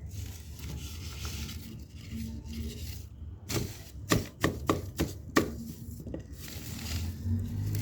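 Small fire of burning paper crackling, with a quick run of sharp snaps about halfway through over a low steady rustle.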